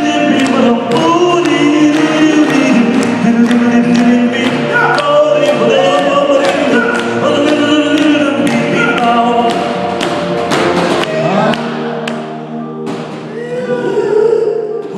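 A group of men singing a melody together over a steady held low note, with sharp beats keeping time that stop about eleven seconds in while the singing goes on.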